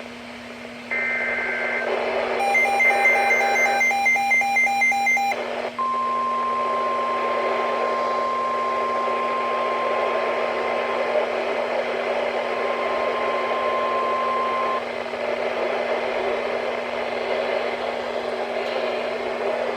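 Emergency Alert System data bursts from a NOAA Weather Radio broadcast: two short buzzy two-pitch screeches, then a longer one overlaid with rapid beeping, followed by the long steady one-pitch warning alarm tone for about nine seconds. After the tone stops, only radio static hiss remains.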